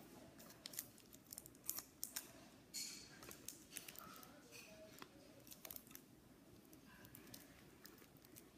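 Scissors cutting clear plastic toy packaging: faint, irregular snips and clicks as the blades close on the stiff plastic.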